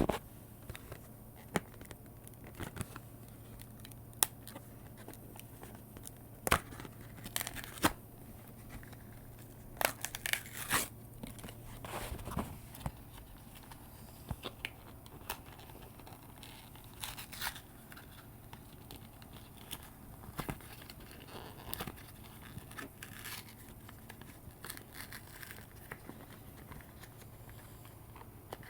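Packaging of a micro USB cable being torn and crinkled open by hand: irregular tearing, crackling and clicking, in scattered bursts.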